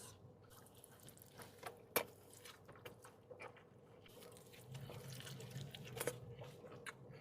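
Faint close-up chewing of a mouthful of burger, with scattered sharp wet mouth clicks, the clearest about two seconds in and again near six seconds.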